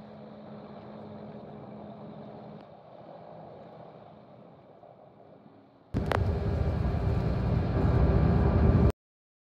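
Vehicle engine and road noise, a steady hum with a few steady tones. About six seconds in it jumps suddenly to a much louder drone, which cuts off abruptly about three seconds later.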